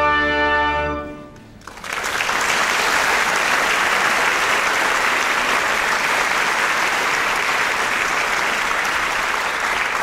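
An opera orchestra holds a final chord, ending the overture; it cuts off about a second in. Then the audience applauds steadily.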